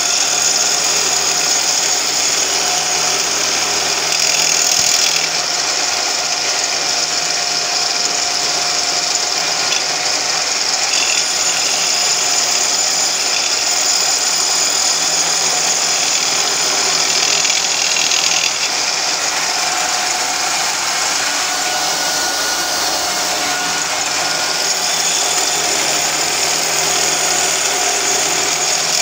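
Belt-driven pillar drill running with a chamfering cutter in its chuck, grinding the edges of brake pads as they are turned under it by hand. A steady, hissing grinding noise.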